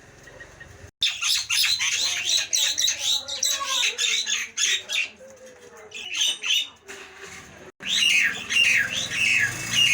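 Jalak nias bird calling in rapid runs of loud, harsh, high squawking notes that swoop in pitch, with a softer lull in the middle before a second loud run near the end.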